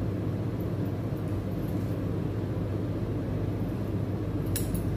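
A steady low mechanical hum throughout, with two quick snips of scissors cutting the feathers of a fly lure close together near the end.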